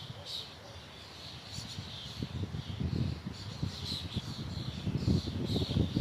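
Small birds chirping repeatedly over gusty wind noise, with the low wind rumble growing stronger in the second half.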